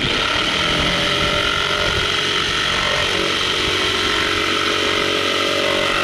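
Corded electric jigsaw running steadily as its blade cuts through a plywood board.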